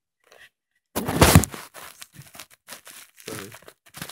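Loud rustling and scraping from hands handling close to the microphone, with the biggest bursts about a second in and again near the end.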